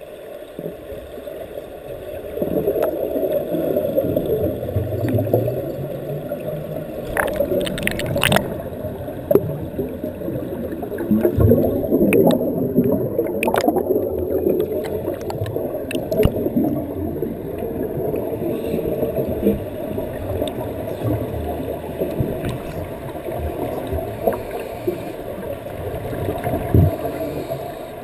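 Scuba divers' exhaled bubbles from their regulators gurgling continuously, heard underwater and muffled, with a few sharp clicks about a third and halfway through.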